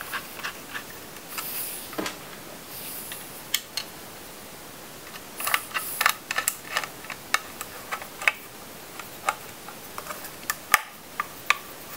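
Small, irregular clicks and ticks of a precision Phillips screwdriver and small screws as a solid-state drive is screwed into a drive caddy, with a few brief rustles of handling.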